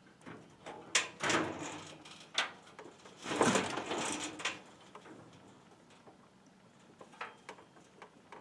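John Deere L120 mower deck scraping against the steel side of the trailer as the mower is shoved along by hand, a short scrape about a second in and a longer one around the middle, with a few clicks and knocks later. The rubbing deck is what is holding the mower back.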